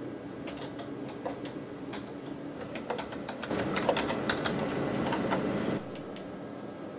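Typing on a computer keyboard: a run of quick key clicks that grows faster and denser in the middle and stops about six seconds in.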